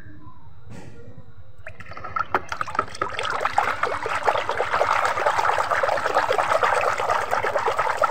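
A hand splashing and swishing through soapy water in a plastic tub. It starts about two seconds in as a busy, crackly sloshing with many small splashes.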